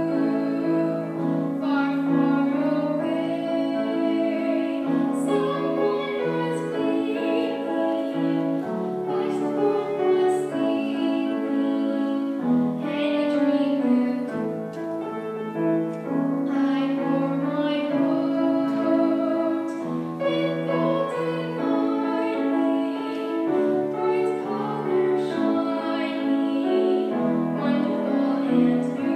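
A young female voice singing a song with grand piano accompaniment.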